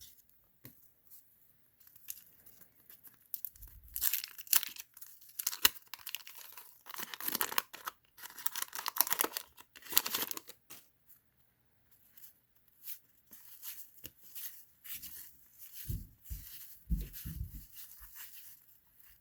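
Crinkly packaging being torn and crumpled while trading cards are handled, in irregular bursts, with a few soft low thumps near the end.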